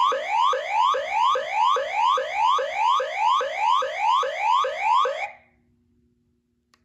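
Electronic toy police siren on the 2023 Hess Police Truck, a fast repeating whoop: rising sweeps at about two and a half a second that cut off about five seconds in. A faint click follows near the end.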